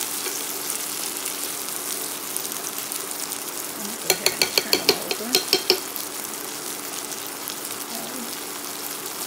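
Asparagus sizzling in melted butter in a frying pan. About four seconds in comes a quick run of about ten sharp, ringing clicks as a metal fork knocks against the pan while spreading the butter.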